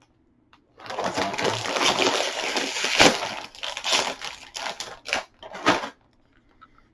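Plastic chip bag crinkling and crackling as it is handled and pulled open at the top. It starts about a second in and stops about six seconds in.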